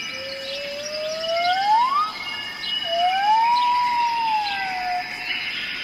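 A bird gives two long, pure whistled calls, each a single gliding note. The first slides upward, slowly and then steeply. The second rises, holds, and falls away. A background chorus of small birds chirping and trilling runs throughout.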